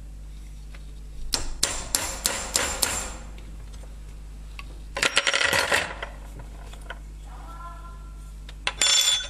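Hand tools and metal at a workbench: a quick run of sharp hammer knocks about a second in, a clatter of tools being handled around the middle, and a short ringing metallic clink near the end.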